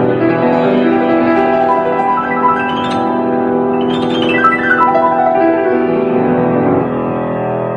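Closing music, mainly piano: slow, held chords with a few higher melody notes moving above them, a little quieter near the end.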